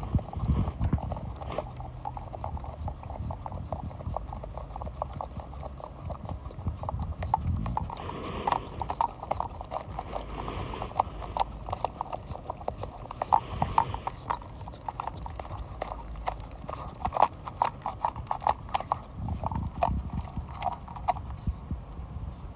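A boxer puppy licking whipped cream out of a small paper cup: a fast, uneven run of wet lapping and smacking clicks that stops about a second before the end.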